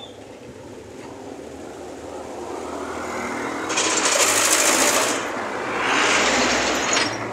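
A small motor vehicle, such as a motorcycle, passing close by on the street: its engine grows louder over a few seconds, is loudest about four to five seconds in, eases briefly, then surges again around six seconds in before fading.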